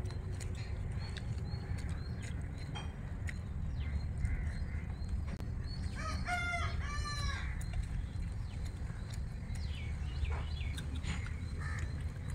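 A rooster crows once, about six seconds in, a call lasting about a second and a half. Soft clicks, a few fainter calls near the end and a steady low rumble lie under it.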